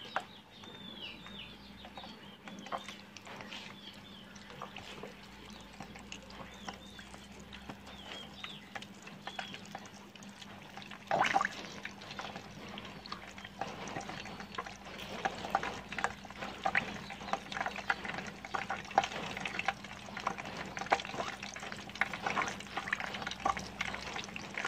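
Flour-dredged chicken wings frying in hot oil, with a dense run of crackling pops that builds from about a third of the way in. Small birds chirp in short falling calls during the first ten seconds or so.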